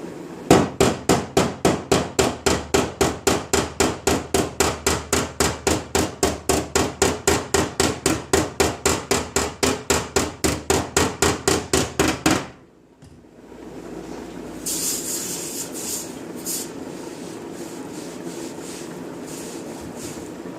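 Hammer striking the thin sheet-steel quarter panel of a Chevy Express van in a steady rapid rhythm, about four blows a second for some twelve seconds, then stopping. A few short scraping sounds follow.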